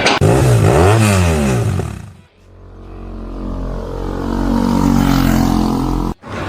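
A motor revving up and down twice, then dying away about two seconds in and building up again with a slowly rising pitch; it cuts off suddenly near the end.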